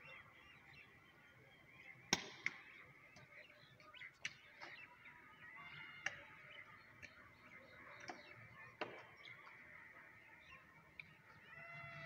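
Faint outdoor ambience with scattered short bird calls and a few sharp clicks, the loudest click about two seconds in; a longer arching call sounds near the end.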